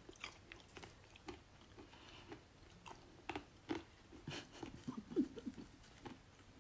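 Close-up chewing of crunchy oil-fried peanuts: quiet, irregular crunches and mouth clicks.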